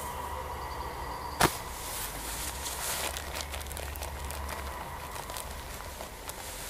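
Outdoor ambience with low wind rumble on the microphone that eases off after about four and a half seconds, and one sharp click about a second and a half in.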